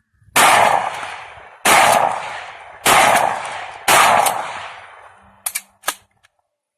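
Four shots from a Remington 870 pump-action shotgun, a little over a second apart, each trailing off in a long echoing tail. Two short, sharp clacks follow near the end.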